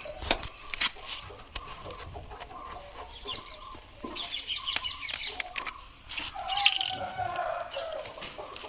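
Chickens clucking, with a quick run of short calls midway and a longer falling call after it. A few sharp clicks and knocks come among them.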